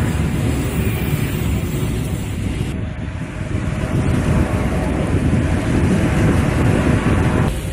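Wind buffeting the microphone, a steady rough rumble, over the noise of road traffic.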